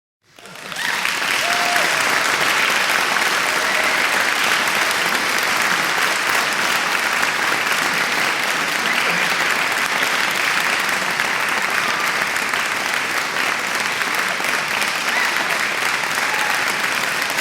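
Large crowd applauding, a dense steady clatter of many hands that swells up within the first second and holds, with a few scattered shouts from the audience.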